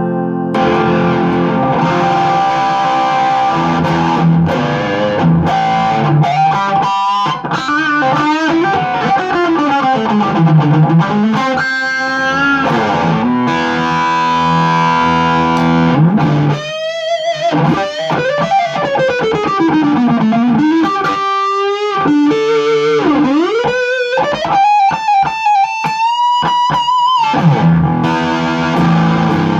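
Electric guitar, likely an Epiphone Sheraton semi-hollow, played through effects with some distortion. Chords give way to single-note lines with long slides and bends, then short choppy rising phrases near the end before chords return.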